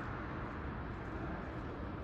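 Steady city-street ambience: a low, even rumble of distant traffic with a soft hiss over it, and no distinct events.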